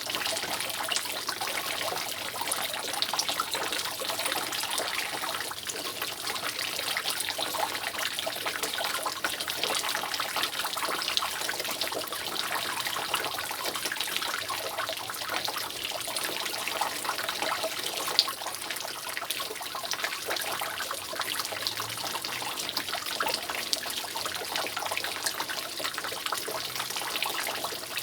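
Water dripping continuously from a roof: many drops falling and trickling in a steady, dense stream, with one sharper drop about 18 seconds in.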